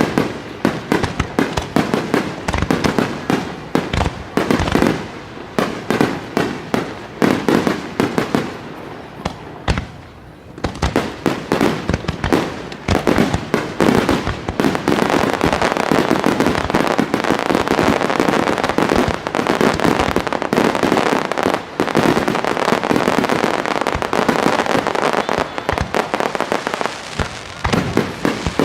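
Starmine fireworks display: a rapid sequence of shell bursts, separate bangs at first, then after a short lull about ten seconds in thickening into a continuous barrage of bangs over steady crackle.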